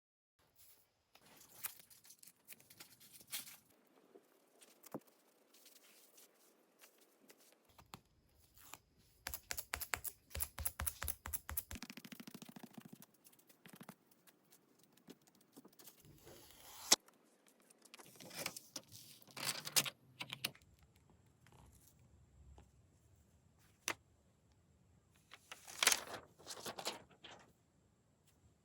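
Hands handling a tablet, its accessories and packaging: scattered clicks and taps with short stretches of rustling, and one sharp click about two-thirds of the way through.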